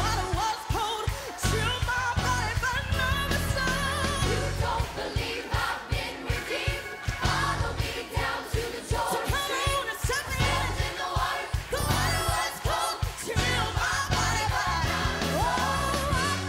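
Live church worship music: a band with bass and drums playing while many voices sing.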